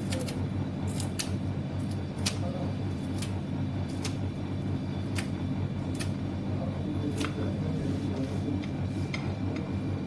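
Kitchen scissors snipping green beans into small pieces, a crisp snip about once a second, over a steady low hum.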